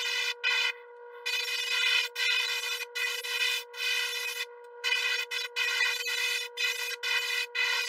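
Airbrush spraying thin coats of paint in short on-off bursts, each a second or less with brief gaps between, over a steady hum.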